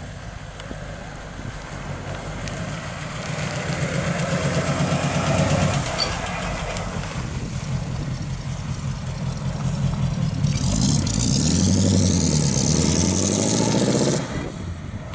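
1949 Ford F-1 pickup's 239 cid flathead V8 running as the truck drives past, getting louder as it approaches. About ten seconds in the engine revs up as the truck pulls away, rising in pitch, then drops off suddenly shortly before the end.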